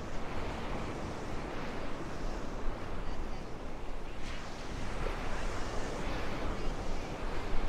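Gulf surf washing on a sandy beach in strong wind, heard as a steady, unbroken hiss with heavy low wind buffeting on the microphone that swells and eases.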